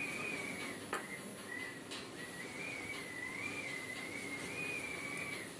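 A faint, thin high whistling tone that wavers slightly in pitch, with a short break about two seconds in and a soft click about a second in.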